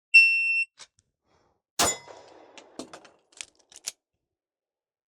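Shot timer's start beep: one steady high tone about half a second long. About a second and a half later comes a single handgun shot from the draw, followed by a few short sharp clicks.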